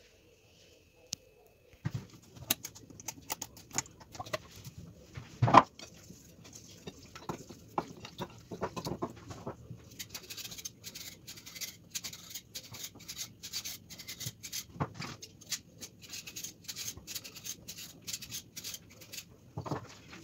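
Cooking oil heating in a frying pan, crackling and spitting with many short sharp pops that grow denser in the second half. A single louder knock comes about five and a half seconds in.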